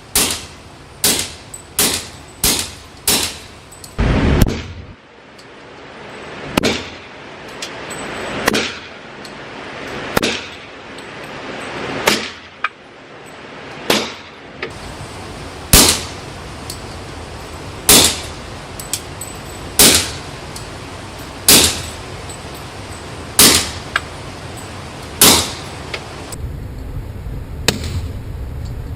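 Suppressed M1911 Government pistol firing live rounds: a quick string of about six shots in the first three seconds, a heavier shot just after, then single shots about every two seconds.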